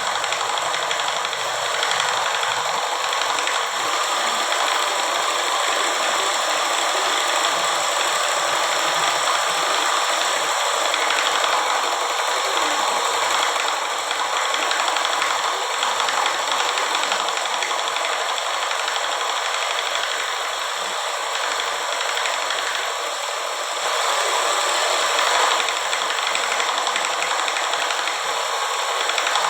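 Homemade scroll saw running steadily.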